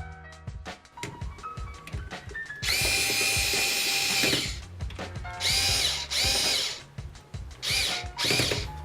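Power screwdriver running in one long run of about two seconds, then four short bursts in two pairs, its pitch rising and falling, as it drives the screws that fix a hard drive into a computer case.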